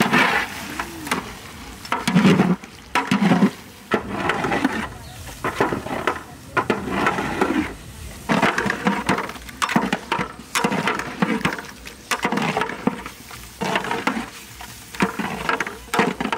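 A spatula stirring and scraping a saucepan of chicken and taro stolon curry in repeated strokes, with the food sizzling over the fire.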